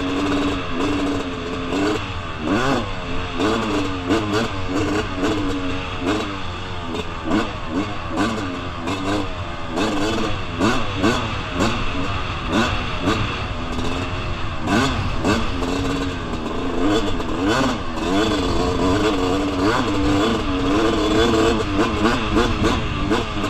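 2001 Suzuki RM250 single-cylinder two-stroke dirt bike engine under riding load, its pitch rising and falling over and over as the throttle is worked through rough, whooped-out trail. Frequent clattering knocks come from the ride over the bumps.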